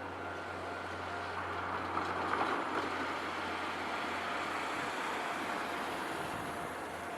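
A vehicle passing the level crossing: a steady rumble that swells about two seconds in, with a few sharper knocks, then holds.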